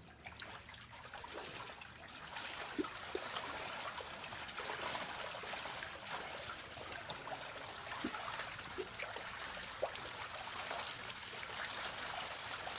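Water trickling steadily, a little louder from about two seconds in.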